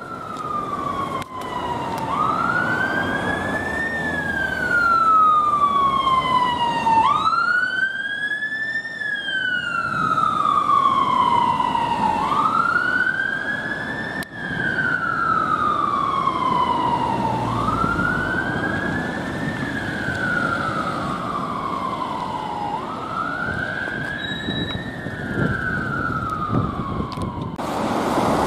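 Ambulance siren on a slow wail, each cycle rising quickly and falling more slowly, about every five seconds, over road traffic noise: the ambulance is on an emergency call. The sound changes abruptly about a second before the end.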